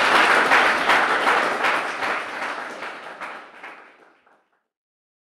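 Audience applauding, a dense patter of many hands clapping that fades out over the last two seconds or so.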